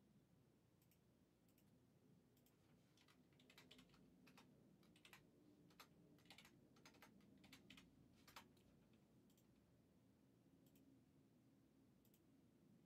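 Faint clicking of a computer keyboard, with a run of quick keystrokes in the middle and a few scattered clicks, over a low steady hum.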